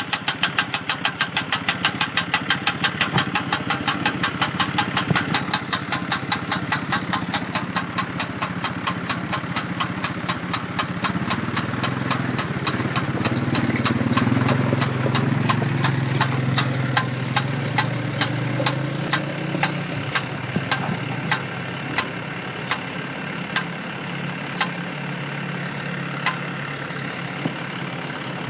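Square baler's wheel turning and slowing down, with a regular clicking that starts at about four clicks a second and gradually slows to one every second or two, over a tractor engine idling.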